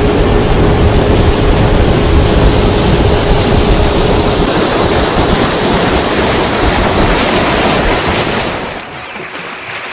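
Wind buffeting the microphone and water rushing past the hull of a motorboat under way at speed, with a faint steady engine hum underneath. The hiss grows brighter about halfway through, then drops sharply to a much quieter level near the end.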